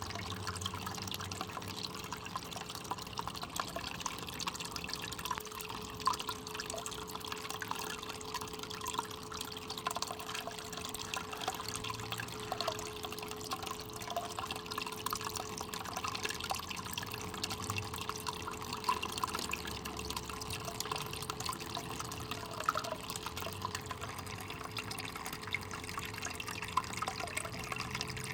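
Water running steadily down a mini gold sluice, trickling and splashing over the concentrates as it washes away the black sand, with a faint steady hum underneath.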